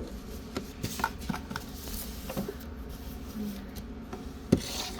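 Pokemon cards being handled on a table: soft rubbing and light taps of cards, with one sharper tap about four and a half seconds in.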